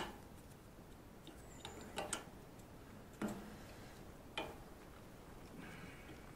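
Light, sharp clicks and taps from hands working hoses and parts while a motorcycle fuel tank is refitted: a handful of separate clicks, one of them doubled about two seconds in, with fainter ticks between.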